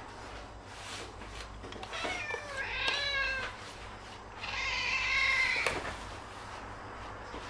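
A domestic cat meowing twice: a call about two seconds in, then a longer, steadier one about four and a half seconds in.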